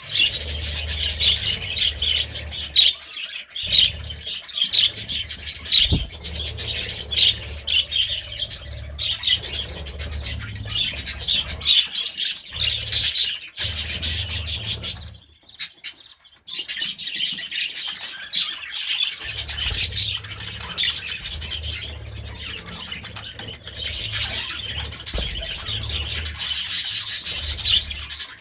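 A flock of budgerigars chattering and warbling in rapid, continuous twittering, with a short lull about halfway through. A low hum sits underneath at times.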